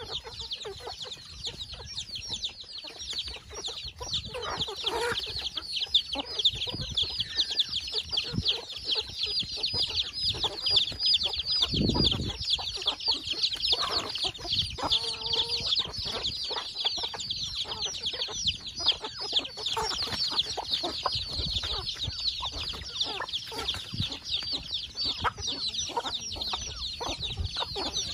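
A brood of chicks peeping constantly in high, rapid cheeps, with hens clucking now and then among them. Many short taps run through it as the chickens peck grain off a tarp.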